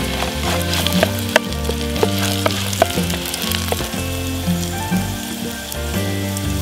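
Potato chips frying in oil in a pan, sizzling with frequent sharp crackles and spits. Background music plays underneath.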